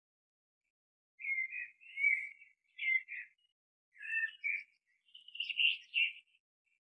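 Birds chirping in short twittering phrases, about one a second, starting about a second in.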